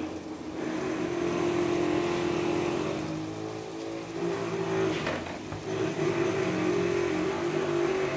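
A motor vehicle engine running in the surroundings, loud and steady, its pitch wavering up and down, with a softer stretch a few seconds in.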